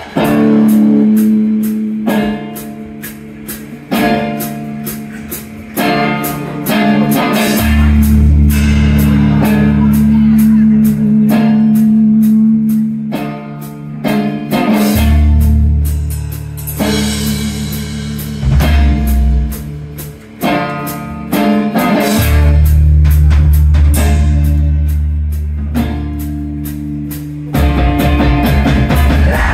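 Live band playing a fast song on banjo, electric guitar, upright bass and drum kit, with a steady beat and sustained bass notes.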